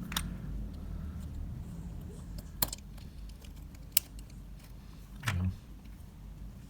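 A few sharp, small metallic clicks of watchmaker's tools against the watch's parts as the movement is worked out of the case: one near the start, another a little before the middle, and the loudest a second or so later.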